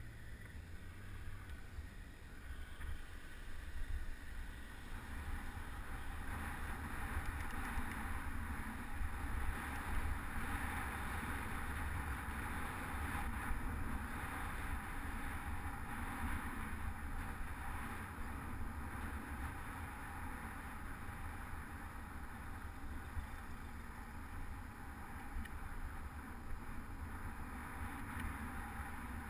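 Wind rushing over an action camera's microphone on a moving bicycle, a steady rumble with a hiss of the ride on top. It swells a couple of seconds in and is strongest for a stretch in the middle.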